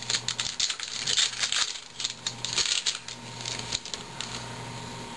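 2011 Topps baseball cards and packs being handled: quick papery clicks and crinkles, dense for the first three seconds and sparser after that.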